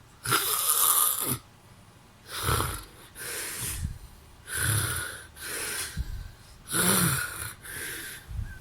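A man snoring in his sleep: four loud snores about two seconds apart, each followed by a softer breath.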